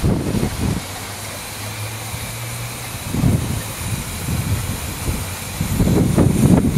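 15-inch gauge 0-4-2T steam locomotive running slowly with its train of coaches: an uneven low rumble of beats that grows louder near the end.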